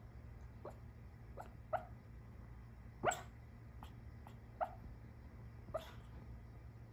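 Small dog barking softly in her sleep while dreaming: about six short, muffled woofs, the loudest about three seconds in.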